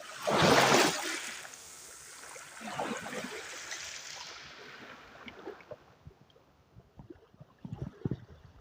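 Sea water washing in: a loud rush in the first second, a smaller one about three seconds in, then fading trickling with scattered small clicks.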